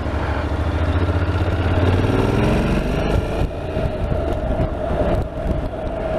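Honda NC750X's parallel-twin engine pulling away from traffic lights: a low, steady engine note, then the pitch rises about two seconds in as the bike accelerates.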